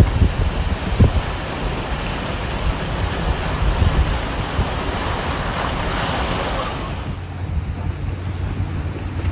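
Storm wind buffeting the microphone with a low rumble, over a rushing noise that swells and then cuts off suddenly about seven seconds in.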